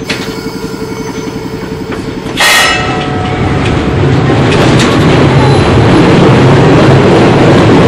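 1928 Peter Witt streetcar heard from inside the car: a steady hum with fast ticking, then a sudden loud burst with a short ringing tone about two and a half seconds in. After it the car's running noise swells and stays loud, as of the car getting under way on the rails.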